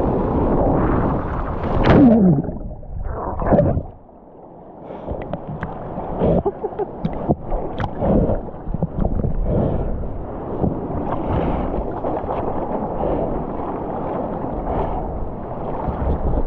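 Seawater splashing and rushing around a surfboard as a surfer paddles. About four seconds in the microphone goes under, and the sound turns to muffled underwater gurgling with scattered bubble ticks and pops.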